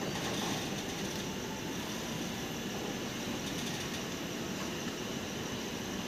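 Steady rumble of a passenger train's coaches moving slowly alongside a station platform.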